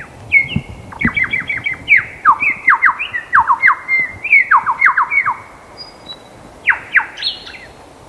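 Lyrebird calling: quick runs of clear notes that each slide sharply down in pitch, several in a row, a short pause about six seconds in, then a few more.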